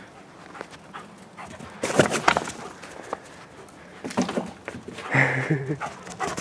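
A dog panting and moving about, with short scuffling bursts about two seconds in and again around four and five seconds in.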